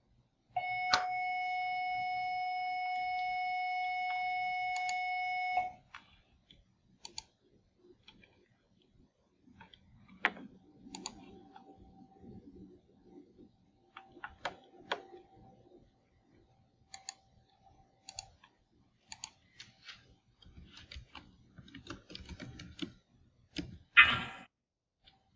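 A steady pitched tone sounds for about five seconds, starting and stopping abruptly, followed by computer keyboard typing and mouse clicks. A brief loud noise comes near the end.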